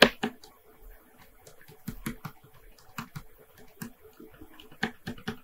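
Irregular clicking and tapping of a computer keyboard and mouse in use, loudest right at the start, then scattered single clicks.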